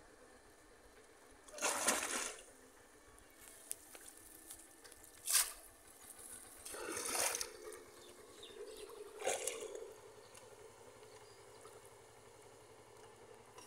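Shallow floodwater splashing and sloshing as a bamboo cone fish trap is worked by hand and a person wades, in four short splashes.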